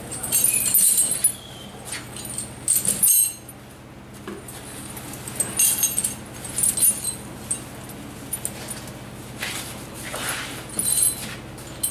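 Heavy steel snow chains clinking and jangling in several short bursts as they are hauled over a rotary snowplow's tyre, with a steady low hum underneath.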